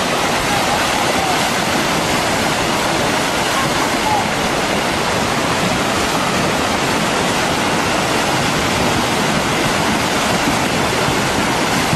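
A hot volcanic mudflow (lahar) of ash, rock and water rushing down its channel, giving a steady, unbroken rushing noise.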